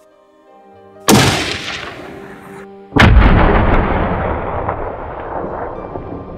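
Two rifle shots about two seconds apart, each followed by a long fading echo. The second shot is the louder, and its echo trails on to the end.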